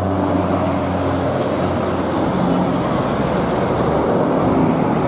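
Steady engine and road noise of a bus crawling in slow traffic, with a low engine hum that thins out about a second in.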